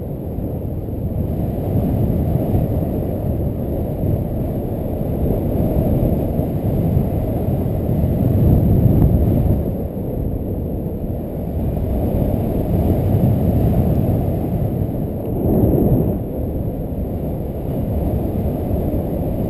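Wind rushing over the microphone of a camera on a paraglider in flight: a loud, low rumble with no clear tone, swelling and easing every few seconds.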